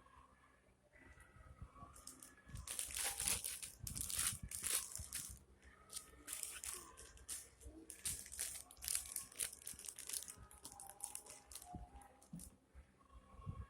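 Plastic packaging crinkling in a run of irregular bursts as it is handled, for about ten seconds.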